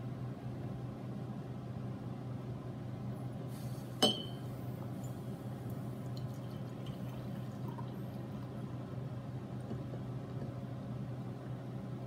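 Brewed coffee being poured from a glass coffee-maker carafe into a ceramic mug, with a single sharp glass clink about four seconds in. A steady low hum runs underneath.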